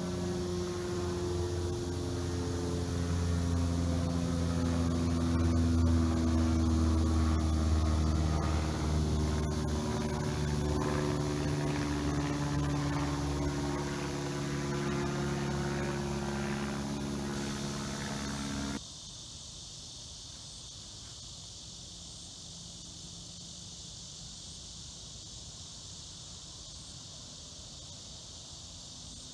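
An engine runs steadily, its pitch slowly shifting. About two-thirds of the way through it cuts off abruptly, leaving a steady high chirring of insects.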